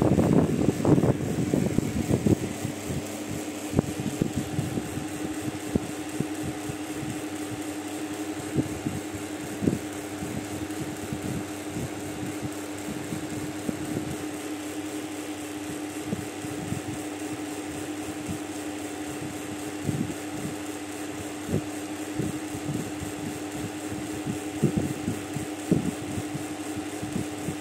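Steady mechanical hum, like a running electric fan, with scattered light clicks and taps. Louder, busier noise fills the first couple of seconds.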